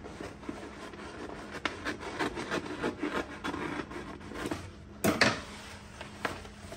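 Paper drawer liner rustling and crinkling as it is pressed down into a wooden drawer and pulled back up, with a louder rustle about five seconds in as the sheet is lifted.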